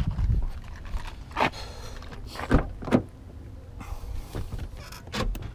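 A minivan door being opened and its locks worked: a series of sharp clicks and knocks from the handle, latch and door lock.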